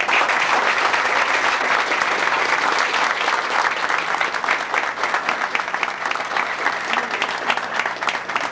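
An audience applauding: many hands clapping together, easing off slightly in the second half.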